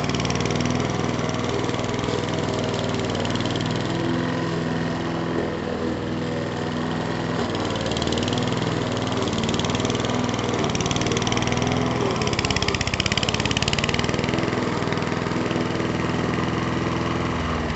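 Honda HR173 petrol lawnmower engine running steadily under load while the mower is pushed across the lawn, cutting thick grass.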